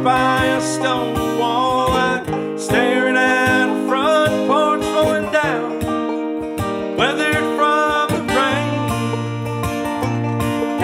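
Acoustic guitar strummed and banjo picked together in a country-folk song, with a voice singing over them.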